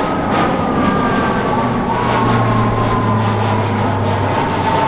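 Turboprop military transport plane flying past overhead. A steady engine drone carries a propeller whine that slowly falls in pitch as the plane passes.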